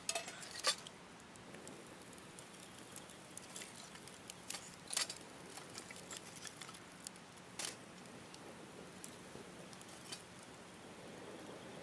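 A metal utensil clinking and scraping against a small camp cooking pot of soup, in scattered light knocks, with a few louder clinks near the start and about five and eight seconds in.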